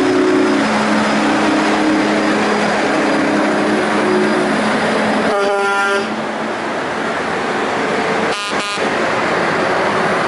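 Heavy Brockway truck tractors driving past one after another, engines running loud. Low steady horn tones sound through the first half, and a short, higher truck air-horn blast comes about five seconds in.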